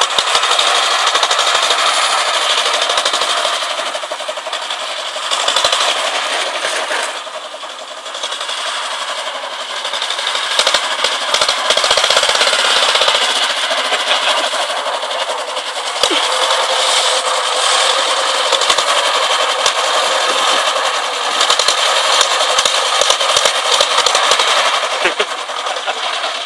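A tractor's small two-stroke pony starter engine (puskach) running with a fast, rattling clatter, easing off briefly about seven seconds in before picking up again.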